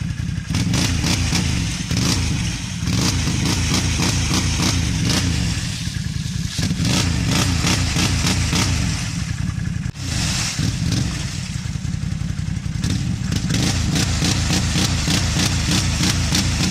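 ATV engine revving hard in repeated surges while its tyres spin in deep mud and water, churning and splashing; the quad is stuck and making little headway.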